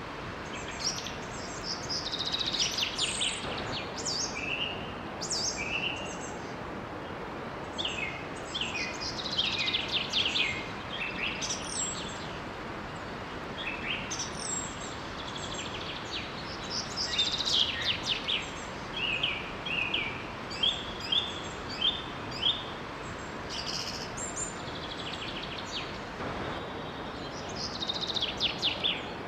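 Songbirds singing: many short chirps and trills, one after another, over a steady rush of water from a small waterfall.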